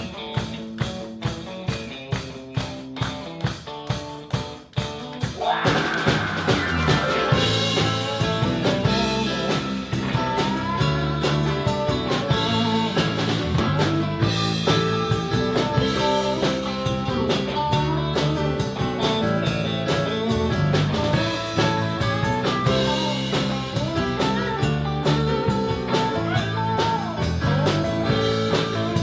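Live blues-rock band playing. The opening is sparse, with a steady beat about twice a second under held chords. About five seconds in the full band comes in, with guitar lines over a heavy low end.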